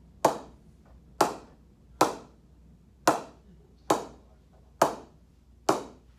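Willow cricket bat, an SG Watto Strike, being tap-tested: seven sharp strikes on the blade about a second apart, each giving a short ringing ping. The even ping is taken as the sign of a well-pressed bat, judged just as good as the others.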